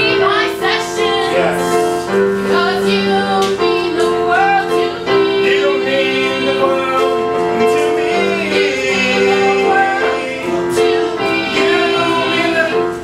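Music: a song sung with vibrato over sustained keyboard accompaniment.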